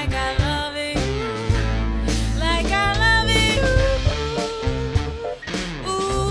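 Live band music: a drum kit keeping a steady beat over a bass line, with a melodic lead that bends and slides in pitch.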